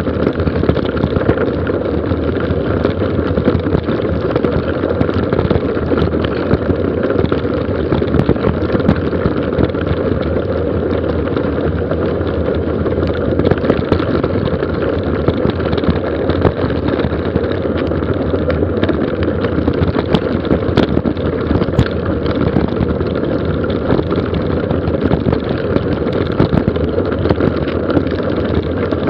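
A mountain bike rolling fast downhill on a gravel road: tyres rumbling over the stones and the bike rattling with many small clicks, with wind rushing over the microphone. The noise stays steady throughout.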